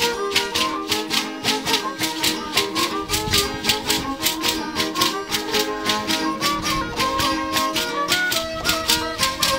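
Violin playing a fast traditional dance tune, with the dancer's ankle rattles shaking in a quick even beat of about four strokes a second.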